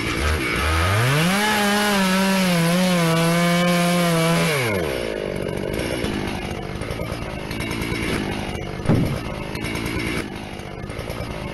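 Chainsaw revving up to a high, wavering pitch and holding there for about four seconds, then dropping back; a rougher, noisier rasping follows, with one sudden loud thump about nine seconds in.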